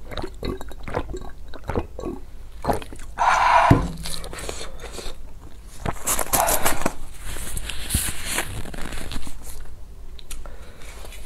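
Close-miked eating and drinking mouth sounds: gulping from a plastic cup, then chewing, as a run of small wet clicks. About three seconds in comes a louder breathy burst with a sharp knock, and another breathy stretch follows a few seconds later.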